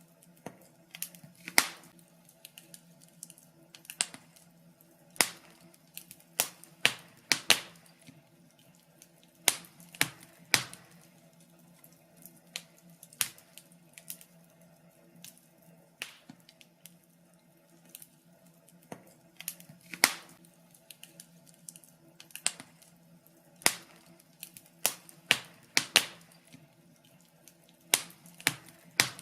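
Wood fire crackling: irregular sharp pops and snaps, sometimes several close together, with a faint steady hum underneath.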